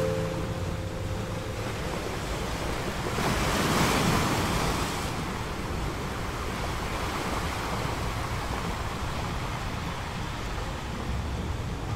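Ocean surf washing onto a beach, a steady rush with one wave swelling louder about four seconds in.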